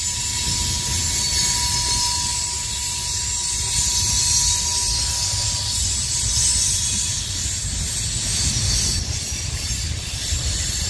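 Freight train of hopper cars rolling along the curve at a distance: a steady low rumble with hiss, and a thin steady high tone that fades out about halfway through.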